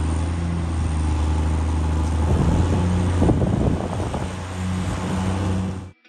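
White 2-135 tractor's Perkins V8 diesel running under load, with dark exhaust smoke from the stack: a steady low drone that gets rougher and louder in the middle and cuts off suddenly near the end.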